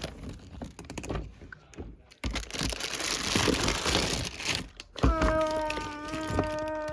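Plastic fidget toys being rummaged through in a bin: scattered clicks and knocks, then about three seconds of dense crinkling and rustling. Near the end a steady held note sounds for about two seconds while the clicking goes on.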